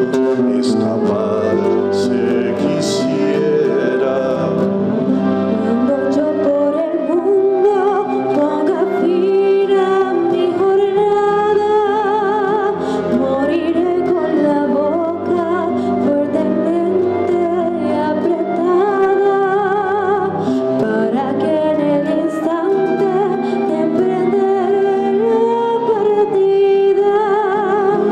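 Live acoustic song: a woman singing with vibrato, accompanied by an acoustic guitar.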